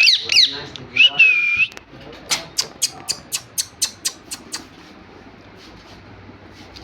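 Two short whistled phrases, each a held high note with quick slides up and down. They are followed by a rapid run of about ten sharp clicks, roughly four a second.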